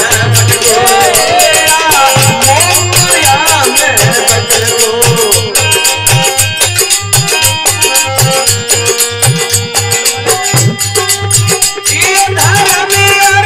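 Instrumental interlude of a Rajasthani folk bhajan: a harmonium holding steady chords and melody over a fast dholak beat, with sharp percussive clicks on top. For the first few seconds a wavering melody line rides above the chords.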